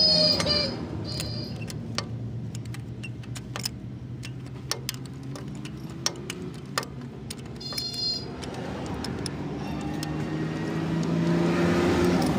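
A motor vehicle engine running nearby, loudest at the start and building again near the end. Scattered sharp metallic clicks come from a socket wrench working a bolt on the clutch housing.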